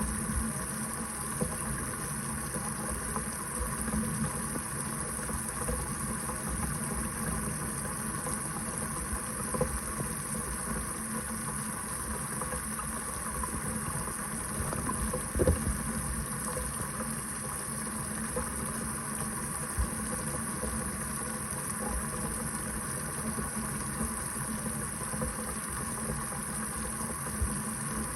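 Kitchen faucet running steadily into the sink, an even splashing rush of water with a few brief louder splashes.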